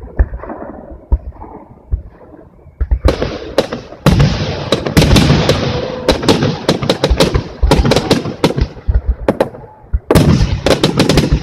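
Aerial fireworks bursting. A few scattered bangs give way, about three seconds in, to a dense rapid barrage of bangs over continuous crackling, which breaks off briefly near the end and then resumes.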